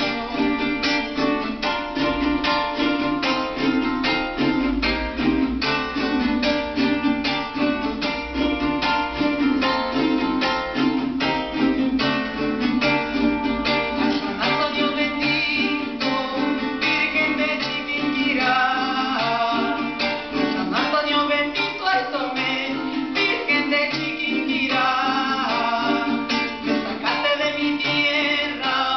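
Live Venezuelan folk music: a woman singing over a fast, steady strummed accompaniment on a small guitar-like string instrument, her voice most prominent in the second half.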